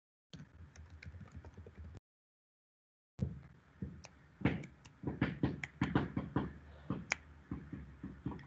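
Computer keyboard typing: a run of sharp, irregular key taps, faint at first, then denser and louder from about three seconds in.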